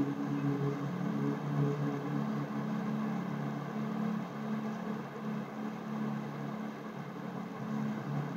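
A steady low hum made of several held low tones that swell and fade slightly.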